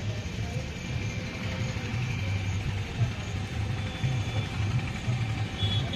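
Steady low rumble of highway traffic, heavy trucks running past.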